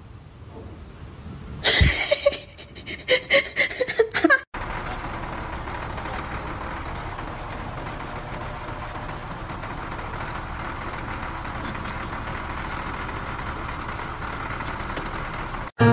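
Motor grader's diesel engine running steadily. Before it, about two seconds in, come a few seconds of short, loud, irregular knocks and pitched sounds.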